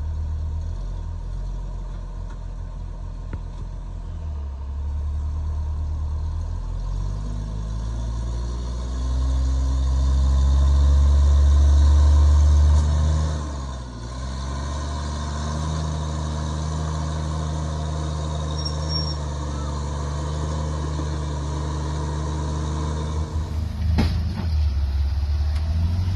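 Jeep engine running at low revs on an off-road trail. It pulls harder and louder for a few seconds about ten seconds in, eases off, then holds steady, with a few sharp knocks near the end.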